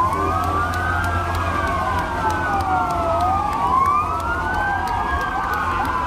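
Several police car sirens wailing at once, their slow rising and falling tones overlapping out of step. Near the end one switches to a faster yelp. A steady low hum runs underneath.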